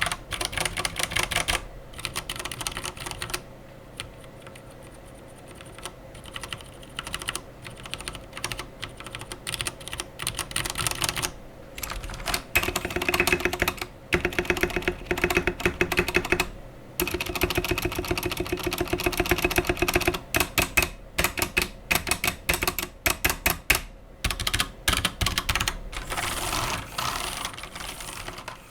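Typing on an Akko 3087 mechanical keyboard with Akko's own switches and PBT keycaps: quick runs of key clicks and clacks with short pauses between bursts, lighter for a few seconds early on.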